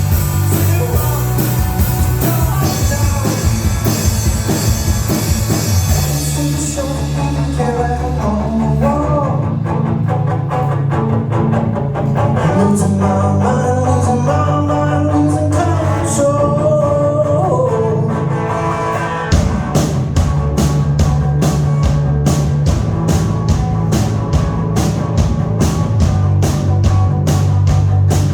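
Live rock band playing with a singer: guitar, bass and drums at first, dropping back to a quieter sung passage, then the full band with drums and cymbals coming back in hard about two-thirds of the way through.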